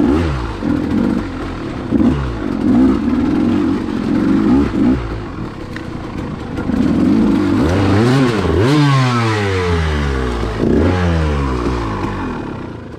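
KTM two-stroke enduro bike engine revving hard through deep mud, its pitch rising and falling, with a run of quick blips of the throttle in the second half.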